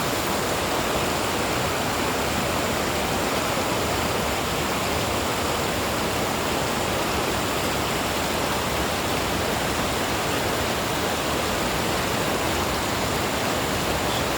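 Waterfall roaring: a steady, dense rush of falling water.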